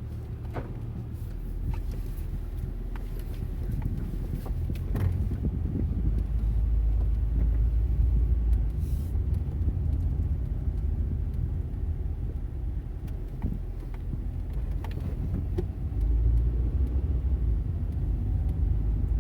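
A 1995 Honda Accord heard from inside the cabin while it drives slowly: a steady low engine and road rumble that swells louder partway through, with a few faint clicks. The car is being driven to catch an intermittent pop, felt through the driver's-side floor, that comes mostly when the transmission shifts at low speed.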